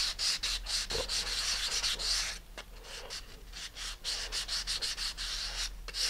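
Balsa fin parts sealed with super glue being re-sanded on sandpaper wrapped around a sanding block: quick back-and-forth scraping strokes. They ease off for about a second and a half midway, then start again. This is the smoothing pass after the glue has cured.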